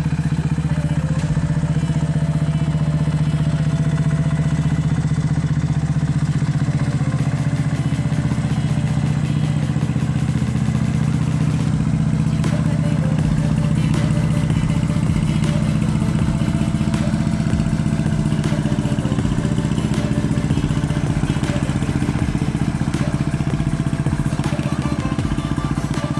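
Small motorboat engine, a ketek, running steadily with a constant low drone.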